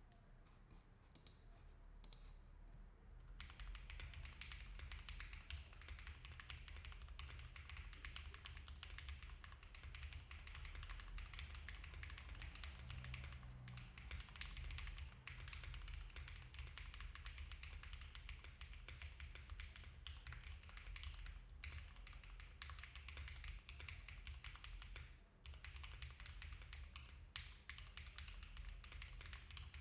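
Continuous typing on a Mode Envoy custom mechanical keyboard with diamond-polished Cherry MX Black linear switches, FR4 plate, plate and case foam and GMK keycaps. A few single keystrokes come first, then a dense, steady run of key presses starts a few seconds in, with a short pause near the end.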